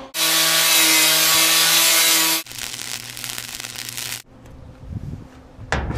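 Flux-core wire-feed welder's arc sizzling in a steady hiss with a hum underneath as a bead is laid on mild steel. It is loud for the first two seconds or so, then quieter, and it stops about four seconds in, followed by a single knock just before the end.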